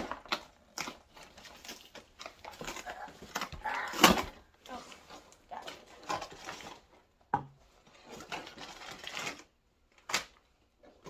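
Packaging being handled and opened by hand: irregular rustling, scraping and sharp knocks, loudest about four seconds in.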